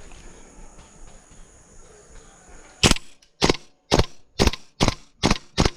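Airsoft rifle fired in single shots, about two sharp cracks a second, seven in a row starting near the halfway point. Before them there is only faint outdoor background.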